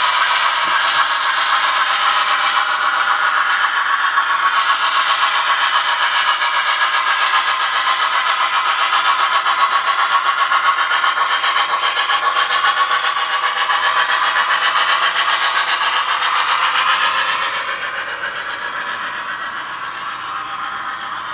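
Model train running on its track: a C&O H-8 2-6-6-6 steam locomotive model and a string of metal and wooden freight cars rolling along, a steady clattering whir of wheels on rail. It falls off in level about 17 seconds in as the train moves farther away.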